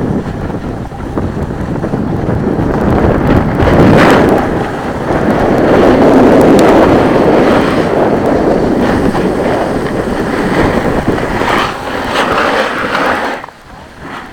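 Wind rushing over the microphone of a camera carried by a moving snowboarder, mixed with the snowboard scraping over packed snow. The rush drops off sharply near the end as the board slows.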